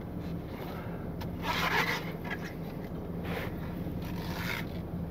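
Tow truck engine running at low speed as the truck slowly reverses, a steady low hum. A few short scraping sounds come through, the strongest about a second and a half in and others near three and a half and four and a half seconds.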